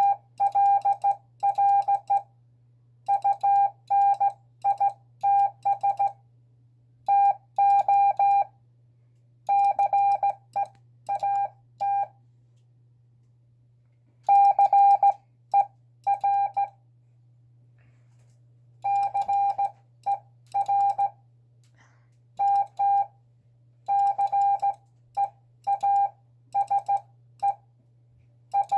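Morse code sent with an iambic paddle key, heard as a single steady beep tone keyed on and off in short dots and longer dashes. The letter groups are separated by pauses of uneven length, as from a beginner whose sending is not yet perfect.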